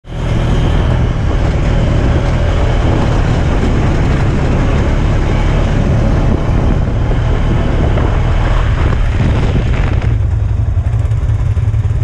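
Off-road buggy engine running while driving a dirt track, with a loud, steady rush of noise over it that thins about ten seconds in.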